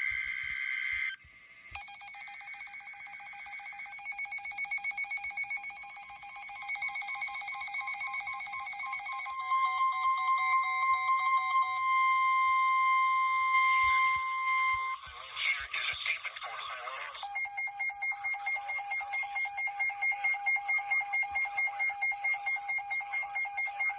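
Weather radio alert tones ahead of a high wind warning: a short burst of data tones, then electronic alarm tones. A quickly pulsing multi-pitch beep runs first, a steady single-pitch warning tone sounds through the middle, there is a brief warble, and then the pulsing beep returns.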